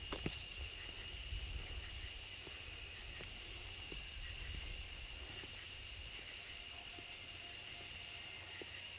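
Crickets calling in the dark, a steady high-pitched trill, over a low rumble and a few soft clicks of footsteps and camera handling. A faint lower hum comes in about six and a half seconds in.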